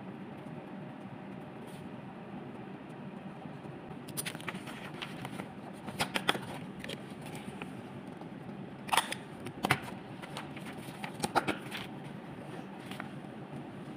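Printed sticker sheets of paper being handled close to the microphone: rustles and sharp crackling clicks beginning about four seconds in, loudest in a few quick bursts later on, over a steady low room hum.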